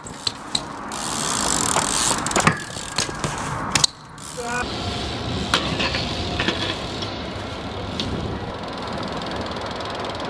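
BMX bikes ridden on concrete: tyres rolling and scrubbing, with sharp knocks and clacks as the bikes land and strike ledges.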